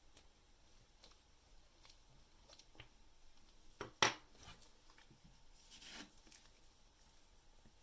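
Faint small clicks and taps of watchmaker's hand tools handling a watch mainspring barrel and its arbor, with one sharper click about four seconds in and a brief soft scrape near six seconds.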